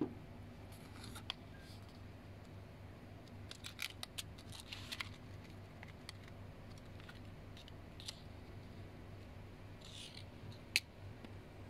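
Small plastic gashapon keychain figures, their metal ball chains and plastic wrapping being handled: scattered light clicks and crinkles, a cluster of them about four to five seconds in, and one sharp click near the end.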